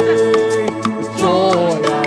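Live gospel worship song: a singer holds a long note and then moves through a melody over a band's sustained chords, with a light percussion tick about four times a second.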